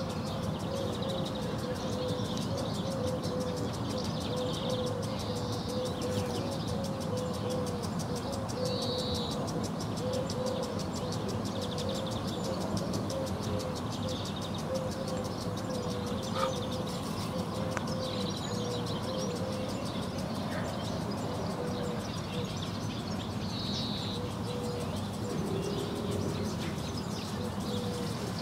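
Outdoor pond ambience: swallows and house martins give brief high chirps now and then over a steady low rumble of distant traffic. Throughout there is a fast, even ticking from a water sprinkler, along with a low pulsing hum.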